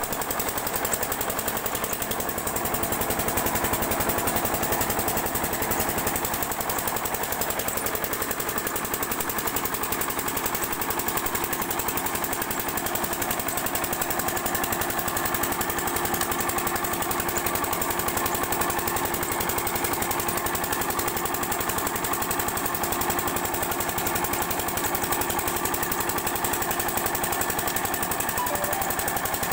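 Single-cylinder 8 hp diesel water-pump engine running steadily with a rapid, even knocking beat. Water gushes from the pump's outlet pipe into a channel beneath it.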